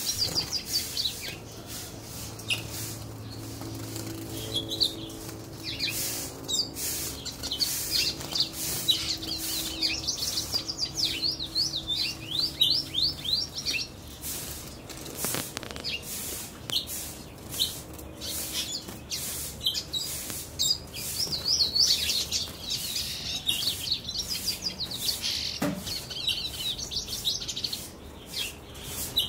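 Caged collarín (seedeater) singing: repeated quick runs of high chirping notes with short pauses between them, and scattered sharp clicks.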